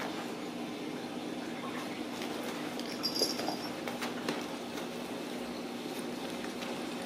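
Kittens playing with toys in a wire playpen: scattered faint knocks and clicks over a steady hum. A brief high, thin squeak comes about three seconds in.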